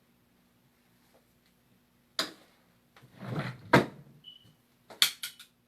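Objects being handled: a sharp click, a rustling clatter and one loud knock, then a brief high beep about four seconds in and a quick run of clicks near the end.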